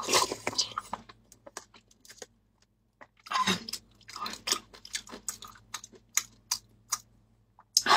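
Close-miked eating sounds of a person sipping and chewing fruit jelly with soft fruit pieces, with wet mouth clicks and smacks coming in short clusters with pauses between.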